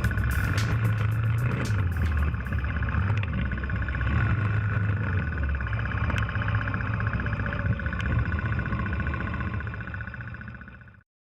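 Honda TRX300 ATV's single-cylinder engine running steadily, with sharp clicks and knocks in the first couple of seconds. The sound fades and cuts off to silence near the end.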